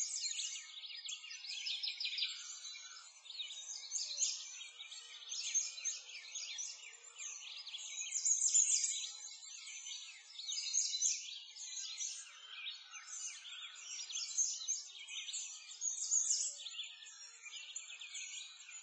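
A chorus of many small birds chirping and singing together: a dense, continuous stream of quick, high chirps with no low sounds beneath them.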